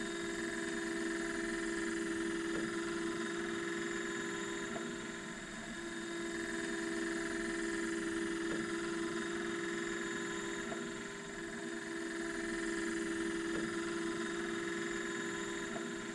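Steady electric hum of an HO scale model turntable and locomotive motor running as the turntable bridge turns, with faint light clicks every two to three seconds.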